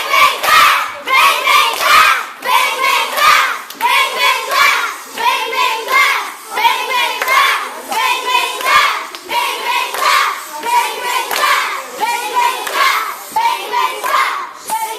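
A group of children singing and chanting in unison, with hand clapping. The short phrases come about once a second in a steady rhythm.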